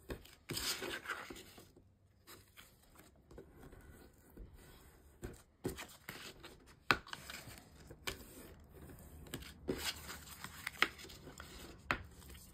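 A Teflon bone folder rubbed along folds in scored cardstock to crease them, with the card rustling as it is bent: irregular scraping strokes and a few sharp taps.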